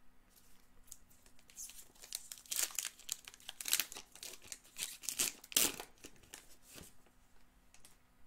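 Wrapper of a Topps Gold Label baseball card pack being torn open and crinkled by hand. It makes a run of crackling, rustling tears from about two seconds in to about seven seconds in.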